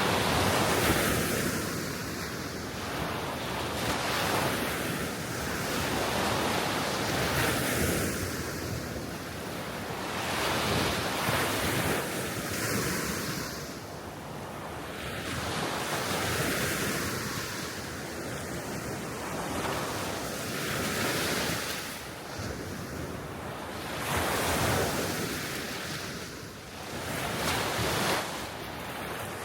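Gentle Baltic Sea waves washing onto the shore, one swell after another about every three seconds, with wind buffeting the microphone.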